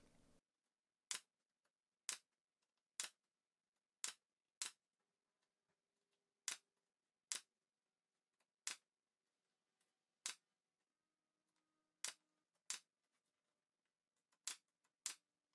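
Bostitch brad nailer firing brads along poplar trim into a plywood drawer face: about a dozen sharp shots at uneven intervals.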